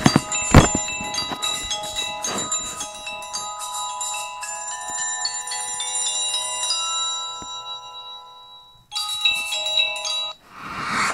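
Samsung Galaxy S4 Mini stock ringtone playing: a bell-like melody of struck, ringing tones that slowly fades out. After a brief pause a short chime starts, the next tone in the phone's set, followed by a short hissy swell near the end.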